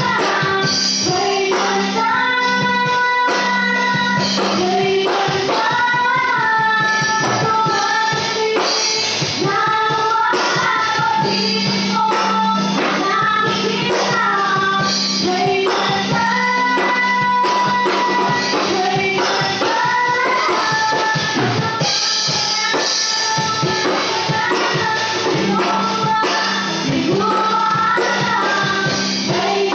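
A woman singing a Tagalog worship song into a microphone, backed live by a band with a drum kit and cymbals and a steady bass line.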